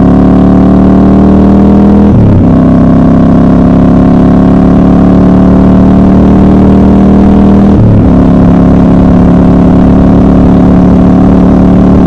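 Triumph Scrambler 1200 XC's parallel-twin engine running under load, its pitch climbing slowly as the bike gathers speed. The note breaks briefly about two seconds in and again about eight seconds in, typical of gear changes.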